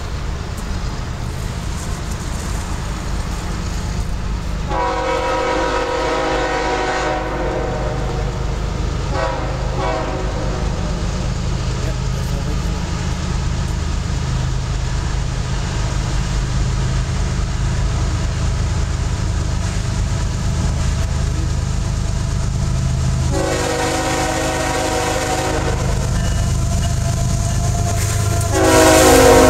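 A CSX ES44AH diesel locomotive approaches with its engine rumbling steadily and sounds its air horn four times. There is a long blast about five seconds in, a short one around nine seconds, and another long blast past twenty seconds. The loudest long blast comes near the end as the locomotives pass close by.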